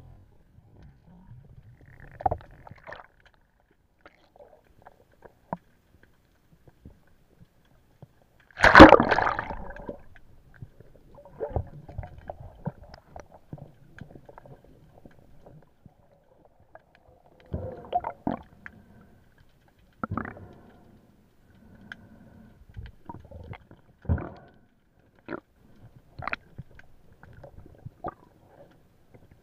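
Muffled underwater sounds picked up through a camera housing: water moving and bubbling, with scattered knocks. There is one loud, noisy burst about nine seconds in.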